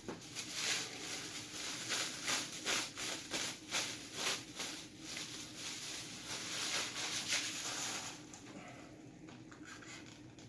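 Packaging being handled and unwrapped: dense crinkling and rustling with quick sharp clicks, which die down about eight seconds in.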